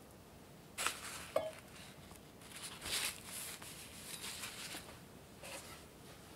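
Soft handling sounds of kitchen utensils: a sharp click about a second in with a brief metallic ring just after it, then light brushing and tapping noises.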